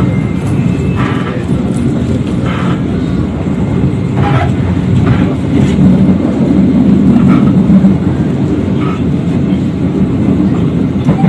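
Running noise of the Joglosemarkerto passenger train heard inside an economy coach at speed: a steady rumble of wheels on the track, with a few brief higher clanks now and then.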